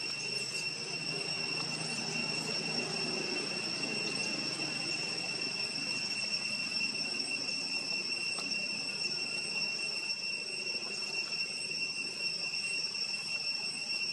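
Steady, high-pitched insect drone over a low background rumble.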